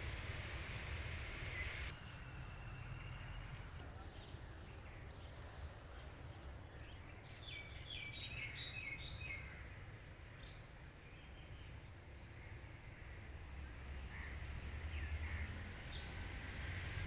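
Outdoor ambience with birds calling: scattered short high calls, with a cluster of them around the middle, over a low rumble. A steady hiss stops suddenly about two seconds in.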